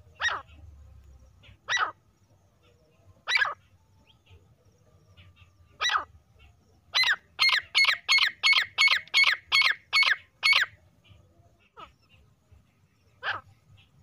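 Female grey francolin (teetar) calling: short sharp calls a second or two apart, then a fast run of about nine calls at roughly three a second, then a few more single calls.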